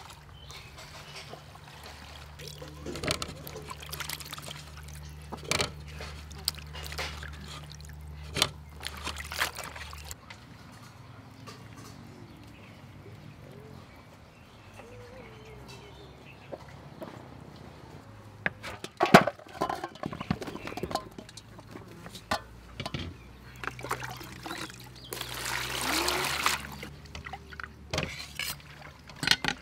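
Scattered knocks and clinks of hands-on food preparation, metal bowls, a colander and vegetables being handled. A few seconds of water splashing come near the end, over a low steady hum in the background.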